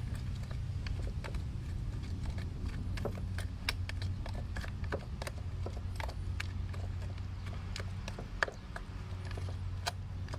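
Yellow plastic toy shovel stirring thick mud in a round container, the scoop clicking and scraping against the container irregularly, over a steady low hum.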